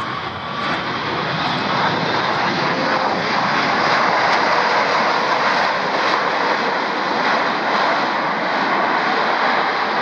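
Ilyushin Il-62's four rear-mounted jet engines running at high power as the aircraft rolls along the runway. The loud jet noise builds over the first few seconds, then holds steady.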